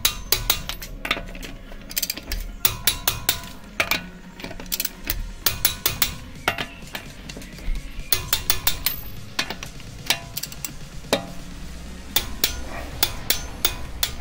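Torque wrench with a ratchet head clicking in quick runs of sharp metallic clicks as the wheel bolts are tightened to 110 Nm.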